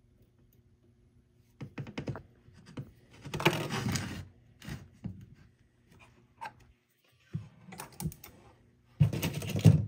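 Metal tweezers, a razor-blade wedge and the rings being handled on a wooden workbench: irregular clicks, taps and clatters, with two louder scraping, rustling bursts of about a second each, one about three and a half seconds in and one near the end.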